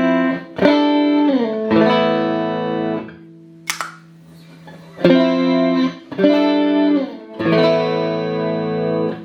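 Clean electric guitar through a Boss CE-5 Chorus Ensemble pedal into Roland JC-120 amps, playing chords with the chorus on. The same short phrase comes twice, each time with a chord sliding down in pitch. In the gap a low note rings on with a brief pick scrape.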